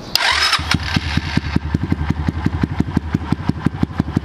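A 125cc race bike engine starting up with a loud burst just after the start, then settling into a steady idle with a rapid, even beat of pulses.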